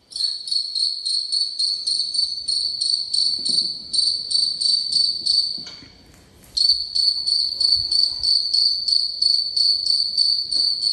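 Recorded cricket chirping played as a sound effect from a phone through a small speaker: a high, rapidly pulsing trill. It breaks off for about a second near the middle, then starts again.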